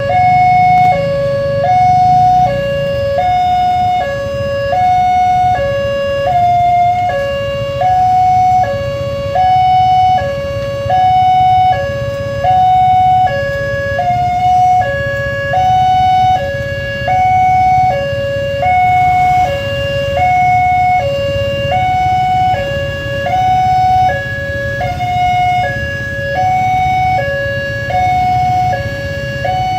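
Railway level-crossing warning alarm sounding a two-tone electronic chime, a higher and a lower note alternating about every 0.8 s, signalling a train approaching with the barrier down. A low rumble of idling motorcycle engines lies beneath it.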